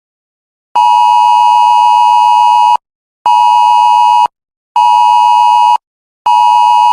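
Electronic emergency-alert beep tone near 1 kHz, buzzy with overtones, sounded in a long–short–short pattern: a two-second beep starting just under a second in, two one-second beeps, and a fourth beep starting near the end. It is the attention tone that introduces a new emergency broadcast message.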